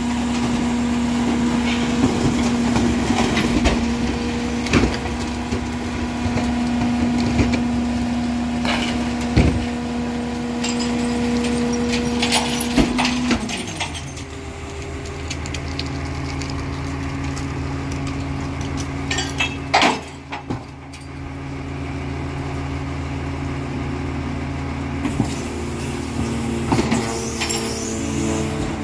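A garbage truck's diesel engine runs at raised revs with a steady hum, then drops back to a lower idle about halfway through. Scattered knocks and scrapes come from the rear hopper, with one sharp bang about two-thirds of the way in. Near the end the hydraulic cart tipper of the Heil Formula 5000 rear loader whines as it tips a cart.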